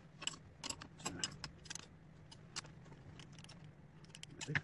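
Light metallic clinks and taps of steel tooling and clamps being handled while a workpiece is unclamped and repositioned on a lathe, irregular and scattered, with a louder couple of knocks near the end over a faint steady low hum.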